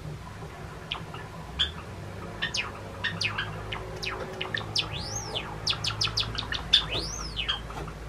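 Male Java sparrow (Sakura morph) singing his song. A few scattered clicking notes speed up into a fast run of sharp notes, with two long rising-and-falling whistled notes about five and seven seconds in.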